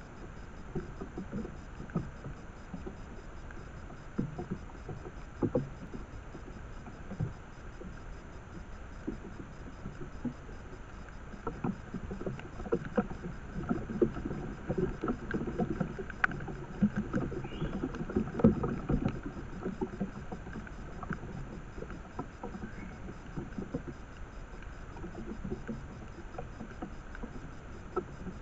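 Irregular rustling, crackling and soft knocks in dry leaf litter and vines from Japanese macaques moving about close to a trail camera, busiest midway, over the camera microphone's steady hiss.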